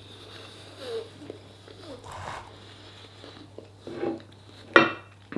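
Chewing and small mouth sounds while eating a mouthful of food, with a sharp click near the end. A faint steady low hum runs underneath.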